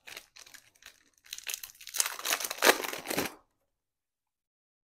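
Trading card pack wrapper crinkling and tearing as the pack is ripped open by hand. It is loudest from about two to three seconds in and stops suddenly about a second later.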